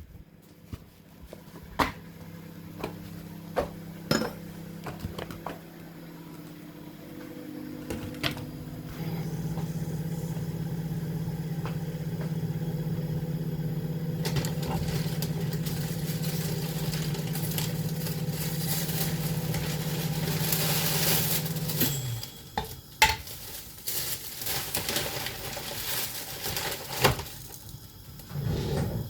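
Kitchen work: clinks and knocks of dishes and utensils over a steady appliance hum that cuts off suddenly about two-thirds of the way through, followed by more clatter.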